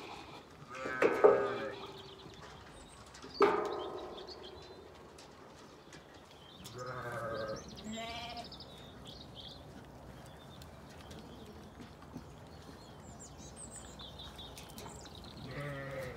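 Zwartbles sheep and lambs bleating, about five separate calls: two loud ones in the first four seconds, then quieter, wavering ones about halfway through and near the end, one of them high-pitched like a lamb's.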